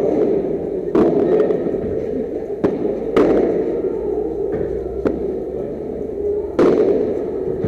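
Padel rally: a ball struck back and forth with padel rackets and bouncing off the court and walls, giving about six sharp knocks at irregular intervals, each with a short echo, over a steady hall hum.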